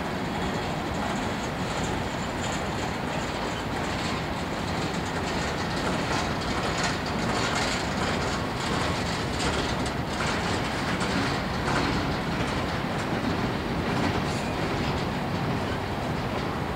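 Empty coal train's hopper cars rolling past, the wheels clicking repeatedly on the rails.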